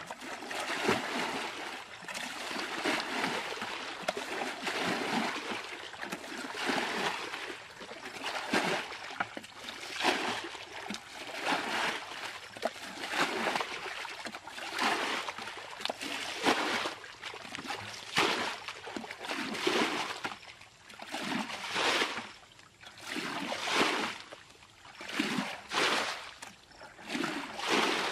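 Muddy ditch water being bailed by hand with a plastic basin: repeated scoop-and-throw splashes, about one every one and a half to two seconds.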